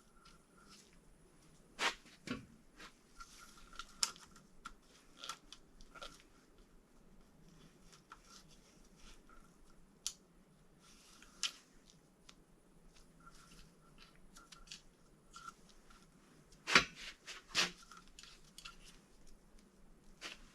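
Scattered light clicks and taps of metal engine parts and hand tools being handled during engine reassembly, with two louder sharp knocks close together about three-quarters of the way through.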